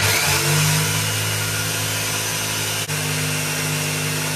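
Electric jigsaw running steadily as it cuts through calcium silicate board, with a brief dip in the sound nearly three seconds in.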